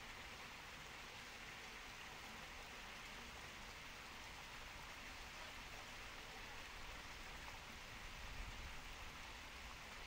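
Faint, steady rush of a small waterfall cascading over rocks into a river pool, with a brief low rumble about eight seconds in.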